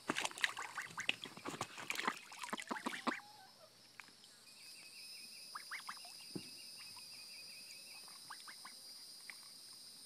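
Domestic ducks splashing into shallow water in a kiddie pool and dabbling with their bills, busiest in the first three seconds, then quieter scattered splashes and dabbling over a steady high-pitched hum.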